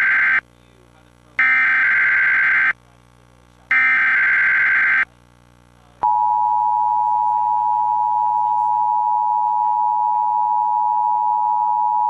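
Emergency Alert System test signal: three bursts of buzzy digital header data, each about a second long and a second and a half apart, the first already under way. About six seconds in, the steady two-tone attention signal begins and holds.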